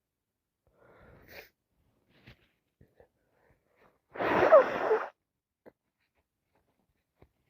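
A person with a head cold sneezing once, loud, a little past the middle, after a faint breath in about a second in.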